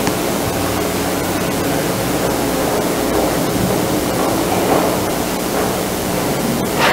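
Steady hiss of the recording's room tone during a silence, with faint soft rustles and a short sharp click near the end.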